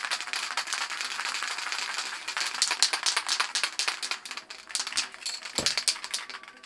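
Montana White aerosol spray can spraying through its stock cap in a long hiss crackling with spatters, the cap spitting paint. In the last couple of seconds it goes in shorter on-off bursts, with a low knock among them.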